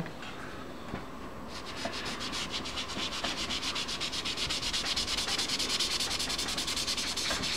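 Cotton ball rubbed quickly back and forth over paper, working powdered pigment into the surface: a fast, even run of dry scratchy strokes, several a second, starting about a second and a half in.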